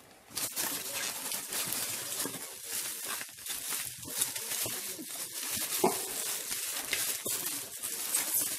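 Plastic bubble wrap crinkling and rustling as it is handled, with many small crackles and clicks, starting about half a second in.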